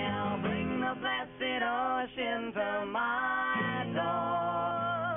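Live folk-rock band playing: two strummed acoustic guitars and an electric bass under held, wavering vocal harmonies. The bass drops out for a few seconds and comes back in near the end.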